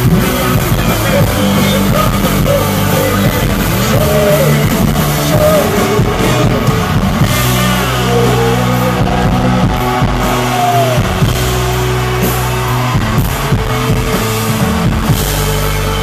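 Live rock band playing loud, with singing over electric guitar and a drum kit, heard from within the crowd.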